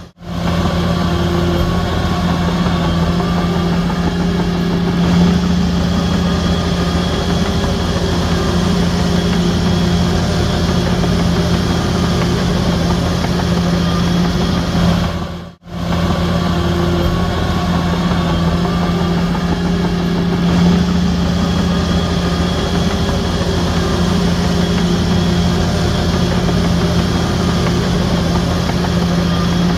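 Heavy diesel earthmoving machinery running steadily, a low engine hum with a ringing overtone. The sound drops out briefly about halfway through and picks up again.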